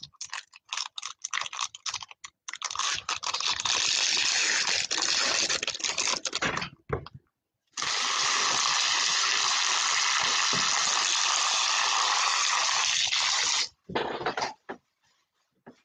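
Foil trading-card pack wrappers crinkling and tearing and cards being handled on a table. The scattered crackles give way to a dense rustle, and later an even, steady rustling noise runs for about six seconds and cuts off sharply.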